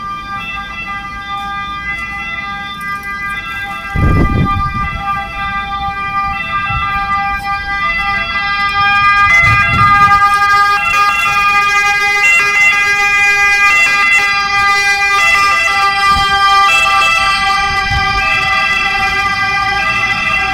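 Ambulance siren sounding, growing louder over the first half as it approaches. A low thump comes about four seconds in.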